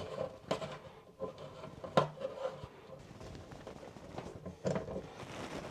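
A few sparse metallic clicks and light knocks as a new washing machine shut-off valve, its threads taped and sealed, is screwed onto the supply fitting; the sharpest click comes about two seconds in.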